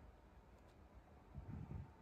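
Near silence: quiet room tone, with a brief soft low rustle about one and a half seconds in.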